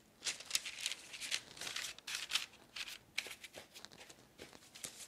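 Parchment paper rustling and crinkling in short, uneven bouts as a rolled log of sweet dough is laid on it and pressed into place by hand.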